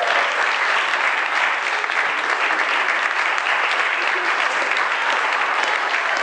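An audience applauding, a dense, steady patter of many hands clapping at once.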